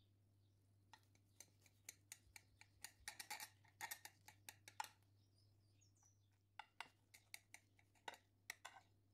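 A kitchen knife cutting through a baked, cheese-topped casserole in a glass baking dish: a run of irregular sharp clicks and taps as the blade meets the glass and the crisp browned edges, coming in two bunches, the first about a second in and the second just past halfway.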